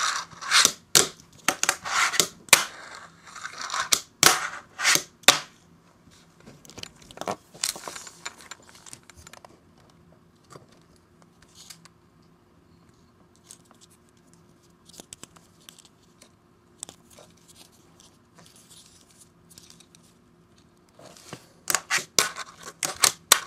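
A fingerboard with YTrucks metal trucks clacking on a tabletop: quick, sharp clicks and taps as the board is popped, flipped and landed. The clicks come thick for the first five seconds and again near the end, with only scattered faint clicks in between.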